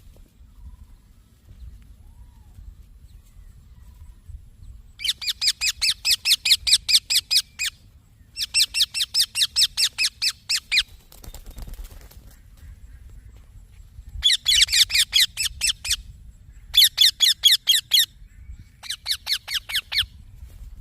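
A young Indian ringneck parakeet calls in five bursts of rapid, evenly repeated high-pitched chirps, about five a second. Each burst lasts one to three seconds, with short pauses between them.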